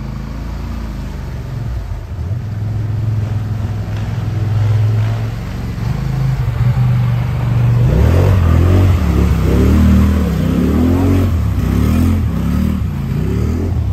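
ATV engine running steadily as the quad wades through muddy water, then revved up and down over and over from about eight seconds in as its tyres churn deep, sticky mud and water.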